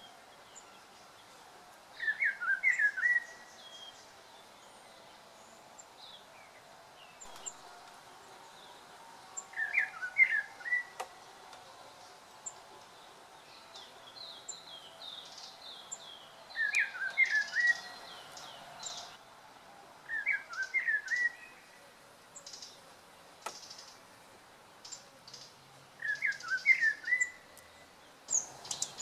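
Chorister Robin-chat calling: the same short phrase of several quick notes comes five times, a few seconds apart. Other small birds chirp higher and fainter between the calls.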